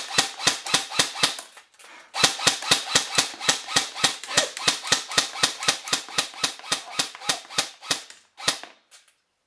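JG HK 416 airsoft electric gun fired fast in semi-auto, about four to five sharp cracks a second, with a brief pause about a second and a half in. The shots stop near the end as the magazine runs low.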